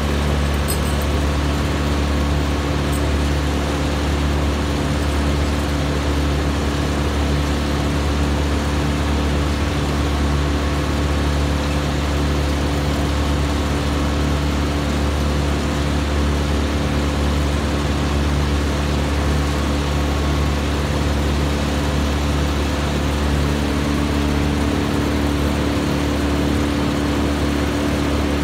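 Heavy work machinery's engine running steadily at one speed, an even low drone that does not change.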